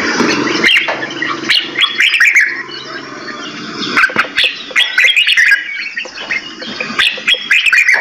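Several caged songbirds chirping and calling over one another. Quick sharp notes come in bunches, busiest in the first couple of seconds, around the middle, and again near the end.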